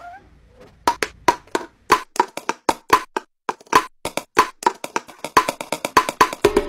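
A quick rhythmic run of dry, knocking percussion taps, about four or five a second, sounding like a wood block, with a lower, drum-like tone joining near the end.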